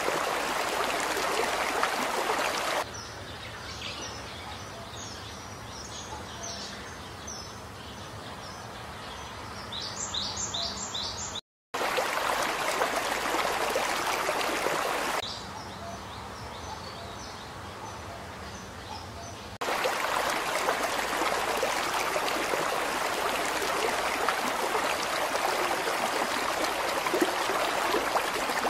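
River water rushing steadily, cut abruptly with two quieter stretches where small birds chirp over and over in short high notes. The sound drops out briefly about eleven seconds in.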